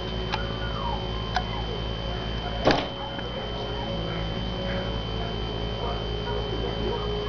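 A small bird striking a window pane: one sharp thump against the glass a little under three seconds in, with a couple of faint clicks before it. A steady high-pitched tone and low hum run underneath.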